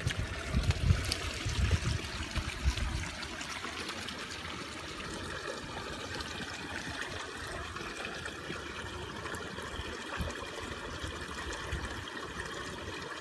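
Shallow stream trickling steadily over stones, with a few low bumps in the first three seconds.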